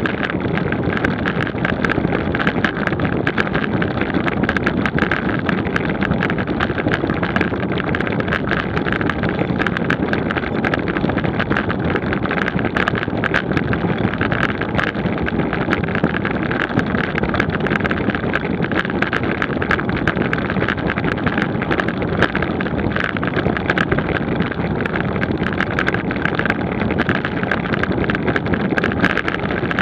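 Wind rushing over the microphone of a road bike's camera at about 25 mph, with steady tyre and road noise and frequent small ticks and rattles.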